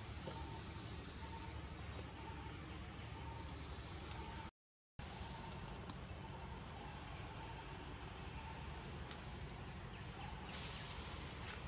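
Steady high-pitched insect drone with a low rumble underneath. The sound cuts out completely for about half a second around four and a half seconds in, and the drone grows louder and brighter near the end.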